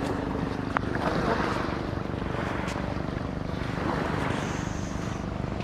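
A motor running steadily, a low even hum, over wind and surf noise.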